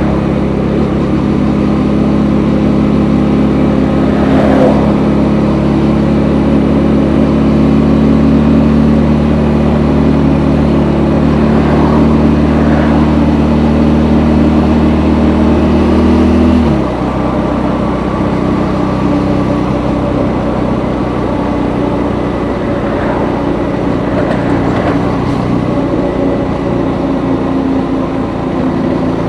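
KTM Gen 3 Duke's single-cylinder engine through its stock exhaust, pulling at a steady throttle while riding, its note creeping slowly higher. About two-thirds of the way in, the throttle closes and the engine note drops suddenly to a quieter drone.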